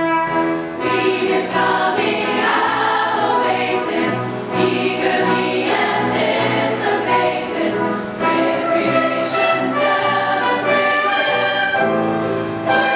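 Women's choir singing in parts, holding sustained chords that move from note to note, with crisp sibilant consonants.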